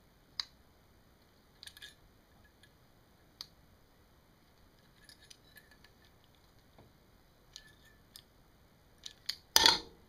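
Steel pliers-type crimping tool working a short copper tube: scattered sharp metallic clicks and snips, then a louder crunch near the end as the jaws bite the copper.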